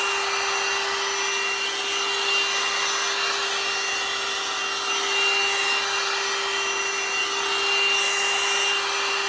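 One-step hot-air dryer and styler brush running: a steady blowing hiss over a constant motor hum, with a rubbing swish that swells and eases every few seconds as the brush is drawn through hair.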